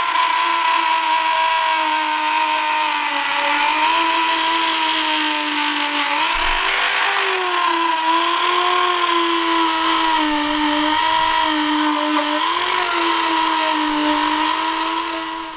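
Cordless Dremel-type rotary tool spinning a small wire brush against a bare aluminium fuel tank, stripping paint. The motor gives a steady whine that wavers and dips in pitch as the brush is pressed on, over the scratching of the bristles, and winds down at the very end.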